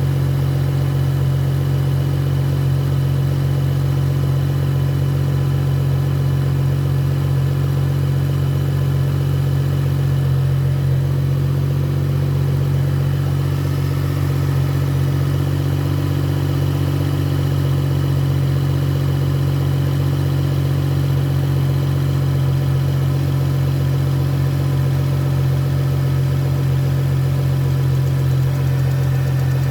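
BMW N55 turbocharged straight-six idling steadily on a cold start, with the rattling noise the owner is chasing.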